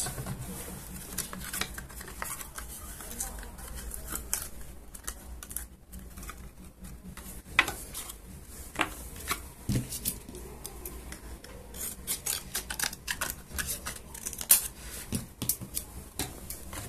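Scissors snipping thin printed cardboard from a biscuit box, the card rustling and creasing as it is handled. The snips are sparse at first and come in quick runs near the end.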